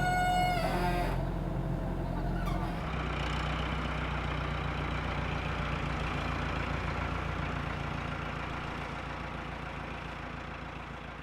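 A brief high-pitched call or squeal in the first second, then a heavy engine running steadily with a low drone, slowly fading out toward the end.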